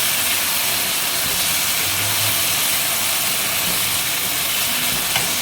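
Eggplant frying in olive oil in a pan, a steady, loud sizzle.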